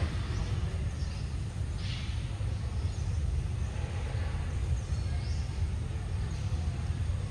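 Outdoor background noise: a steady low rumble, with a few faint brief higher hisses.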